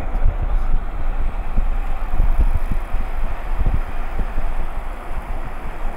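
Wind rushing and buffeting against the microphone of a moving vehicle, with the vehicle's road noise underneath: a steady rush broken by irregular low thumps.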